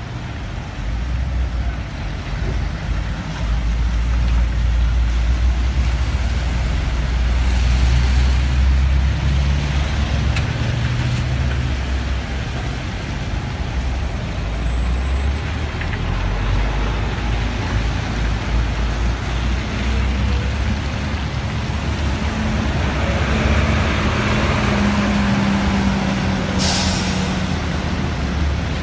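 Motor traffic on a wet street in the rain: a steady hiss of rain and tyres over the low running of vehicle engines, with an engine hum held for several seconds near the end and a short sharp hiss just before the end.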